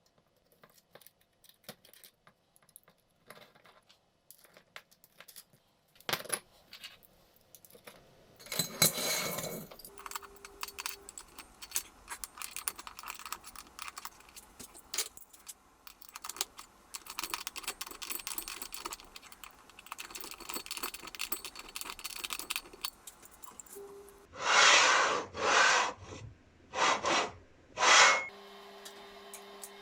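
Small metal parts clinking and being handled, with scattered sharp clicks and light scraping. Near the end come four short, loud, noisy bursts, each under a second.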